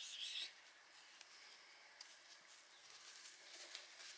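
Near silence, opening with a brief high hissing rustle that lasts about half a second.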